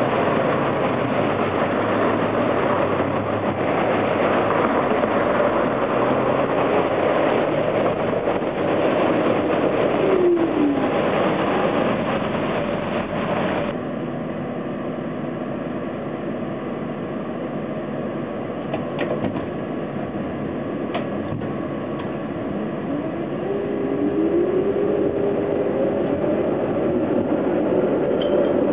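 Wet-street traffic noise, with one passing vehicle dropping in pitch about ten seconds in, then the sound cuts to a TTC streetcar heard from the front of its cab, running along the King Street rails with a few sharp clicks and a rising motor whine near the end as it picks up speed.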